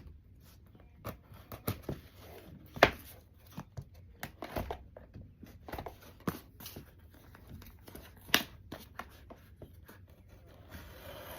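Hands working at a taped shipping package to get it open: irregular clicks and knocks with rustling of the packaging, the sharpest click about three seconds in, and a longer rustling scrape near the end.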